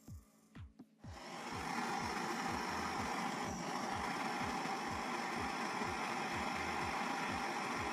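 Hand-held gas cartridge blowtorch burning with a steady rushing noise, starting about a second in, its flame playing on a rusted steel steering knuckle. A faint beat of background music runs underneath.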